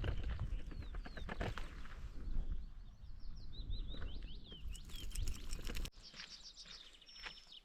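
Footsteps on a hiking trail over a low rumble, with a small songbird giving quick chirping notes in the middle. Just before six seconds in, the rumble cuts off suddenly and the bird carries on with a rapid run of repeated high notes.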